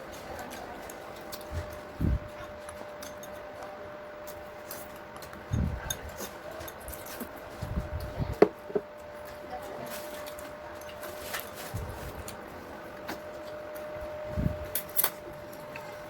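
Eating sounds: soft low thumps every few seconds and a couple of sharp clicks, over a steady faint hum.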